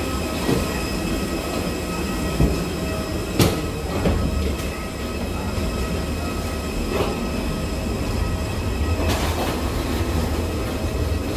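Steady machinery rumble with a faint high whine, broken by a few sharp knocks, around a parked airliner whose engines have been shut down.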